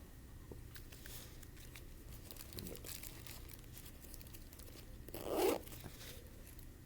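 Faint rustling and handling noises from hands moving small items, with one louder crinkling rustle about five seconds in.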